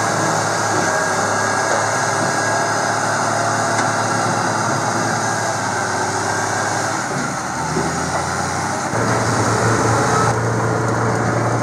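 Heavy diesel engine of a logging grapple skidder running steadily at a low pitch. About nine seconds in the engine note changes to a stronger, slightly higher hum as a utility vehicle's engine takes over, heard from inside its cab.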